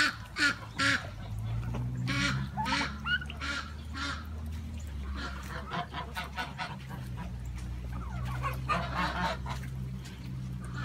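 Farmyard poultry calling: short clusters of repeated calls near the start, again about two to four seconds in, and once more near nine seconds, over a steady low rumble.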